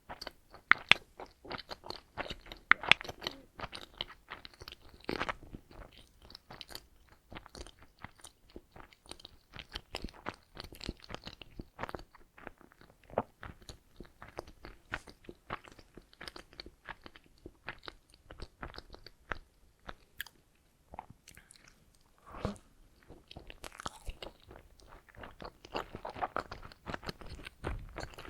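Close-miked eating of donuts: a steady run of wet chewing clicks and mouth smacks, with a few sharper bites in the first few seconds and a short lull about three-quarters of the way through.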